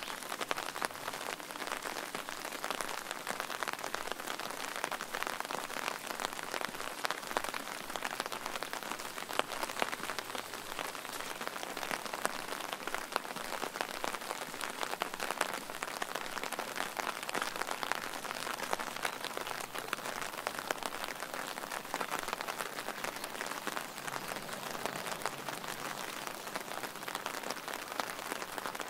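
Steady rain, with many separate drops clicking sharply on a hard surface in a dense, even crackle.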